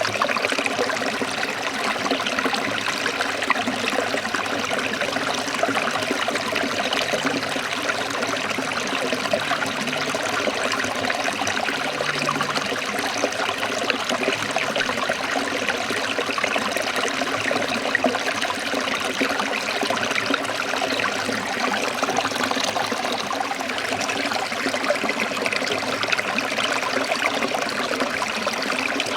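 Forest stream of water trickling and splashing steadily, with no let-up.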